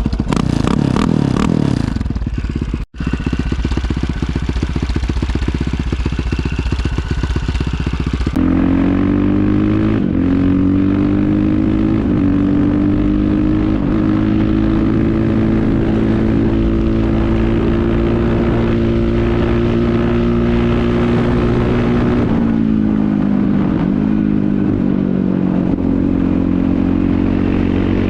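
1997 KTM 620 LC4's single-cylinder four-stroke engine through an Akrapovic exhaust: a pulsing idle with a short rev about a second in, then from about eight seconds a steady drone at held revs, dipping in pitch briefly a few times.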